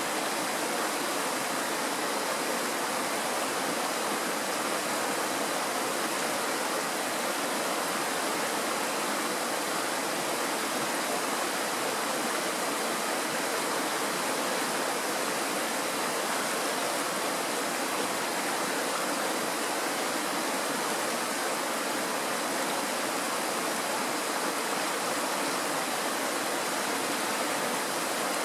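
Shallow mountain stream running over stones and a small riffle: a steady, unbroken wash of flowing water.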